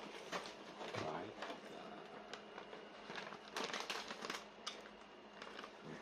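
Thin plastic bag of thymol crystals crinkling and rustling as it is handled, a run of sharp crackles and clicks that is busiest a little past halfway.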